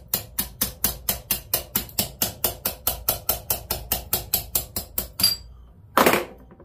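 Quick, evenly spaced light taps, about four a second and some twenty in all, tapping a stuck free-floating piston pin out of a Briggs & Stratton 5 hp engine's piston. One brief, louder noise follows about six seconds in.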